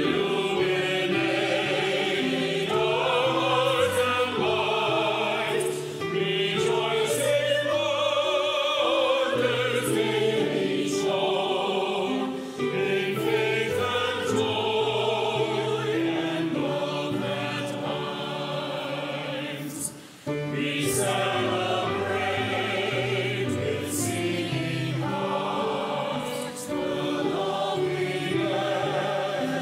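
A congregation and choir singing a hymn with grand piano accompaniment, line by line with short breaths between the phrases.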